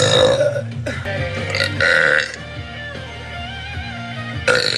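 A woman burping loudly three times, at the start, about two seconds in and near the end, over background music.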